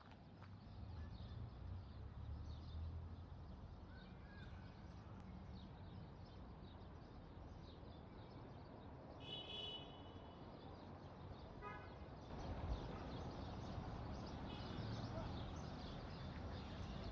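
Faint evening outdoor ambience: scattered small bird chirps over a low steady rumble, with two short, louder calls about nine and twelve seconds in.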